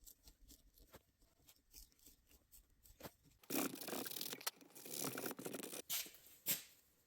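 Knife carving a small wooden spoon: scattered light clicks at first, then dense scraping as it shaves the wood, starting about halfway in and lasting a couple of seconds.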